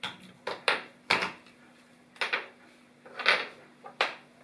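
Plastic clamp meter and its test leads being handled and set down on a ceramic tile floor: a string of irregular hard clacks and knocks, about eight in all.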